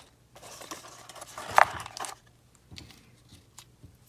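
Plastic bubble-wrap packing and a cardboard box being handled, rustling, with one sharp click about a second and a half in, then a few light taps as the box is closed and moved.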